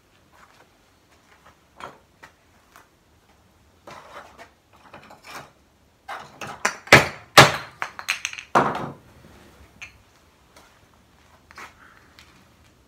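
A glued test joint, a wood edge glued onto melamine-faced board, being forced apart on a workbench: handling clatter, then three loud sharp knocks a little past the middle as the piece is struck to break the glue joint.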